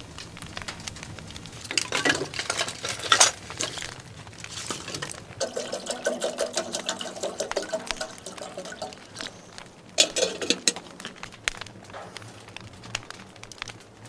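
Water poured from a plastic bottle into a small stainless steel kettle for a few seconds midway, with metal knocks and clinks of the kettle before and after. Faint ticking of the wood fire in the stove underneath.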